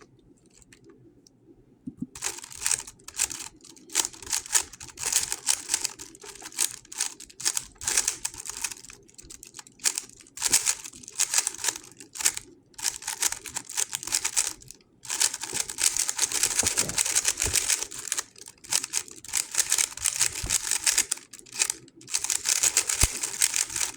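GAN 11 M Pro magnetic speedcube being turned fast during a solve: a dense run of rapid plastic clicking and clacking that starts about two seconds in, with a few brief pauses.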